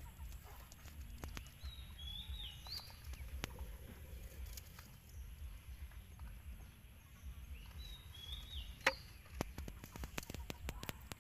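A small bird's short chirping call, heard twice about six seconds apart, over a low steady rumble. Sharp clicks and knocks of firewood being handled come in the last few seconds, the loudest just before them.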